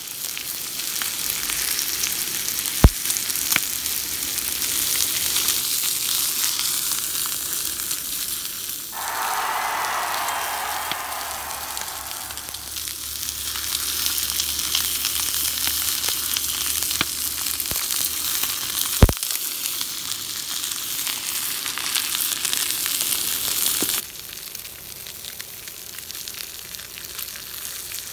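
Thick beef steaks sizzling steadily on a hot iron griddle plate. Two sharp pops stand out, about 3 s and 19 s in, and the sizzle turns quieter about 24 s in.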